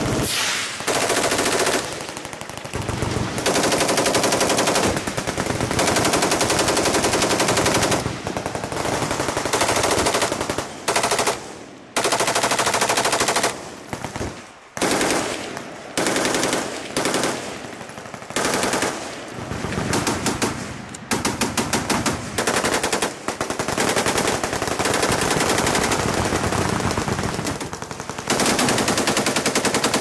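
Full-auto machine-gun fire from several guns on a firing line: long rapid bursts that run into one another, broken by a few short pauses.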